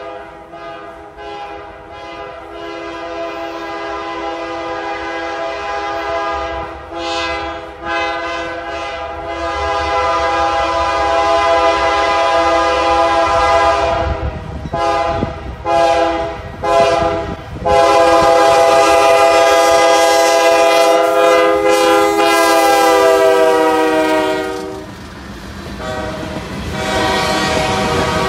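CSX freight locomotive's air horn sounding a multi-note chord for a grade crossing: long blasts, a run of short blasts, then a long final blast whose pitch drops slightly as the locomotive goes by. Near the end the horn stops and the rumble and wheel noise of the passing freight cars follow.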